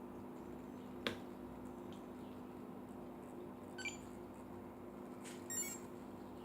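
Faint steady hum with a click about a second in and two short electronic chirps, one near the middle and one about five and a half seconds in, from an electric RC helicopter sitting at zero throttle.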